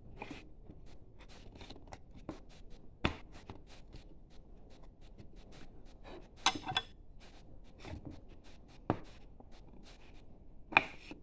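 Hand carving chisel paring wood in short strokes: a run of small scraping and clicking cuts, with a few louder knocks in between.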